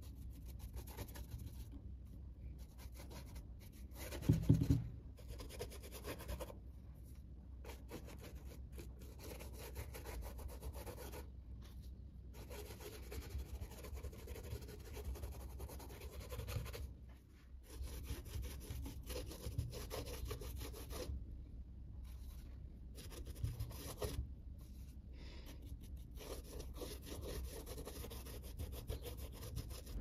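Flat paintbrush scrubbing and dabbing acrylic paint onto a rough plaster-bandage textured canvas: faint, repeated rubbing strokes, with one brief louder bump about four seconds in.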